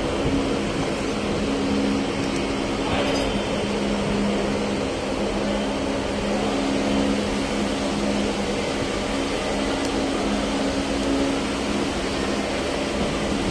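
A machine running steadily in the background: an even hum with two low steady tones and a whirring hiss over it.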